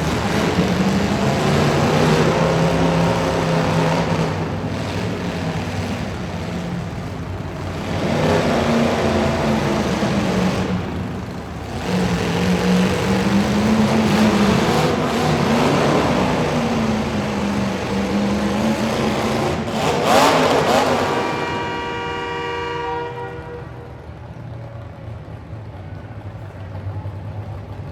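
A truck engine running hard, its pitch rising and falling, loudest about twenty seconds in and then dying away. Shortly after the peak, a steady horn-like tone sounds for about two seconds.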